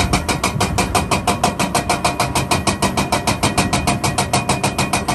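Hydraulic breaker on a Caterpillar 336 excavator hammering rock: rapid, even blows, about ten a second.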